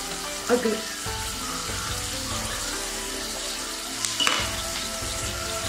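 Bottled beer being poured into a glass: a steady fizzing hiss, with a light clink of glass about four seconds in.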